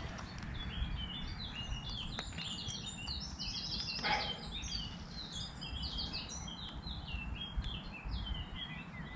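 Birds singing: a quick, busy run of short chirping notes over a low steady rumble, with a brief rustle about four seconds in.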